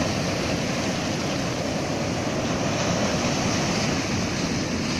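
Ocean surf washing steadily, an even rushing noise with no breaks.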